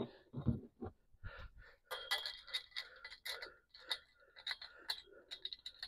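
Light, irregular metallic clinks and taps, with a little scraping, as galvanized fence poles and their fittings are handled; the clinks come more thickly from about two seconds in.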